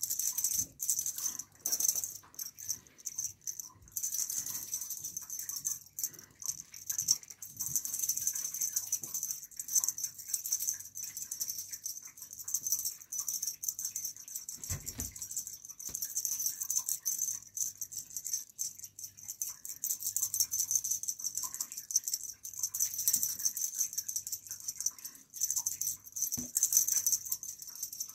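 Feather wand cat toy being shaken and waved for a kitten: a fast, high-pitched rattle that keeps rising and falling, with short pauses.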